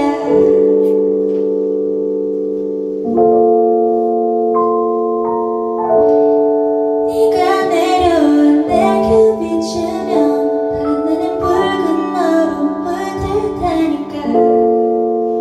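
Female voice singing a slow phrase over sustained keyboard chords. The chords ring on their own for the first several seconds, the voice comes in about seven seconds in, and a fresh chord is struck near the end.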